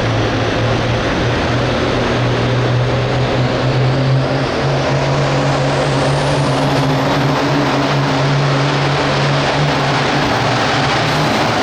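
Hot Farm pulling tractor's diesel engine running hard and steady at high revs under load, its pitch climbing a little about a third of the way in and then holding.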